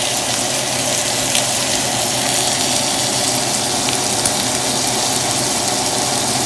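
T-bone steak and onion slices sizzling steadily in a hot pan, with a few small pops of spitting fat.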